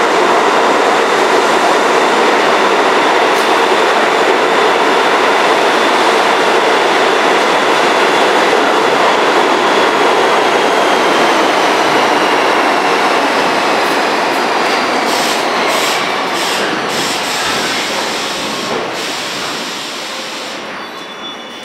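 R42 subway train pulling into an underground station and braking. A loud, even rumble of wheels on rail carries a high whine that falls in pitch as the train slows. The sound fades over the last several seconds, with a run of clicks and knocks as the train comes to a stop.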